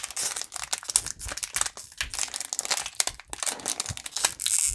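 Foil Pokémon booster pack wrapper crinkling and crackling in the hands as it is opened, with a longer rasp near the end.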